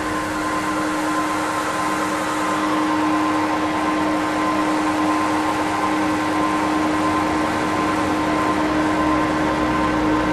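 Effects-pedal feedback loop through an EarthQuaker Devices Data Corrupter with delay and reverb pedals, making a dark ambient noise drone: a steady held low tone and fainter higher tones over thick hiss, getting a little louder.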